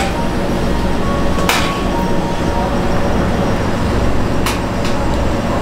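Steady low rumble of kitchen background noise, with a few sharp clicks or knocks: one about a second and a half in and two more past the middle.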